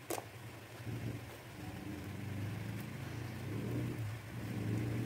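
A steady low hum like a running motor, with a short click just after the start.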